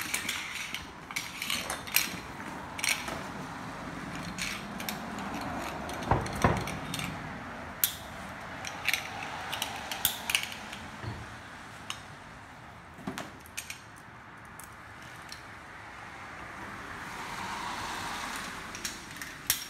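Rescue rigging hardware, steel carabiners, pulleys and a rope grab, clinking and clattering at irregular moments as it is unclipped and moved about on concrete, with rope rustling in between.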